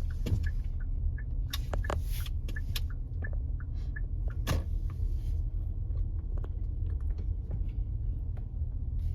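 Car cabin noise while driving slowly: a steady low rumble from the engine and tyres, with scattered small clicks and knocks inside the car.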